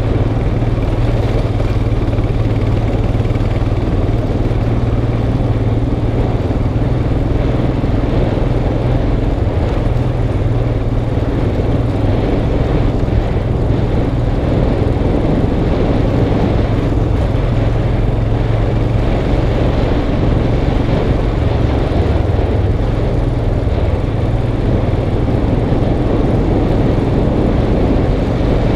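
Motorcycle engine running steadily at a constant, even pitch while riding a rough dirt road, heard from a helmet-mounted camera, with steady road and wind noise.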